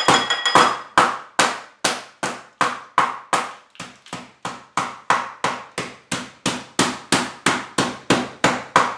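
Metal meat mallet pounding raw chicken flat, in a steady run of strikes about two and a half a second.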